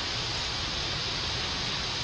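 Steady hissing noise with no distinct events.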